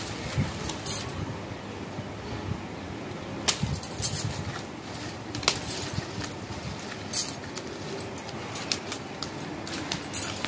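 Scattered light clicks and clinks, one every second or two, over steady background noise.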